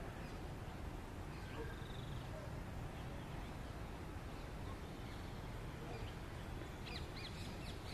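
Outdoor background with a steady low rumble and a few faint chirps; near the end, birds break into a run of sharp, quickly repeated calls.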